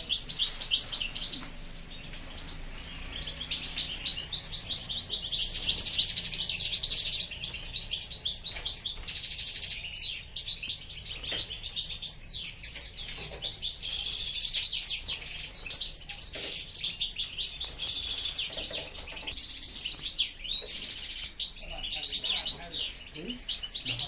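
Caged songbirds singing: a fast, near-continuous twittering of rapid chirps and trills.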